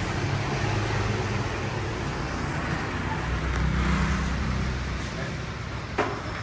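Street traffic: motorbike and vehicle engines passing close by, swelling twice, with one sharp knock near the end.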